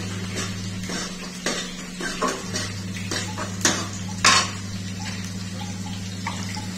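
A metal spoon or spatula clinking and scraping against a metal kadhai as food is stirred while it fries, in a run of irregular clinks, the loudest about four seconds in. A steady low hum runs underneath.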